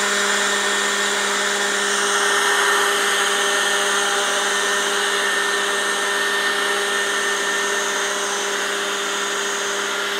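Handheld electric leaf blower running steadily at full blast, a constant whir of motor and fan over a rush of air, aimed at a hovering mini drone.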